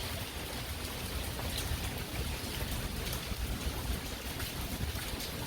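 Rain falling steadily in a thunderstorm, an even hiss with scattered drips, over a low rumble.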